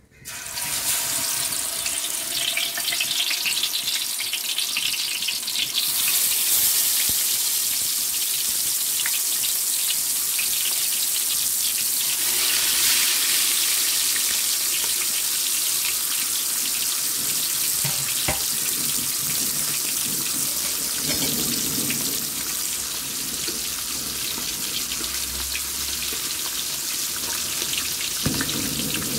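Pieces of snakehead fish sizzling in hot oil in a wide aluminium pan. It is a steady hiss that starts as the first piece goes in and grows louder about six seconds in.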